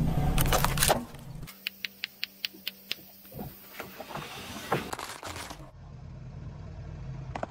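Car tyre rolling slowly over objects on asphalt and crushing them, with the low hum of the car and crackling, squelching breaks. In the middle it goes quieter, with a run of evenly spaced sharp clicks, about five a second, then a few scattered cracks and pops before the low hum returns.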